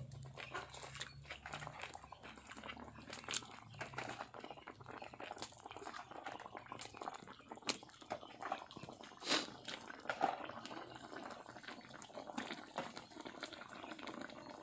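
Coconut-milk curry bubbling and spitting in a wide metal wok over a wood fire: a dense, irregular run of small crackles and pops.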